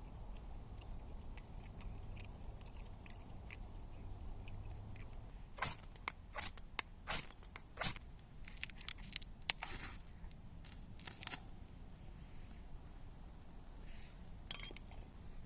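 A run of short sharp clicks and crunches, closely spaced between about five and eleven seconds in, over a faint low hum.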